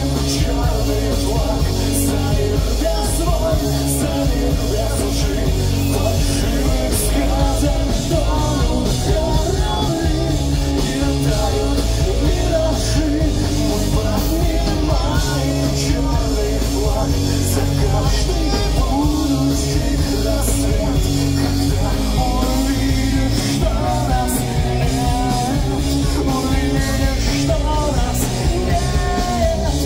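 Pop-punk band playing live through a club PA, loud and continuous: a full rock band of drums with cymbal strikes, bass and guitars.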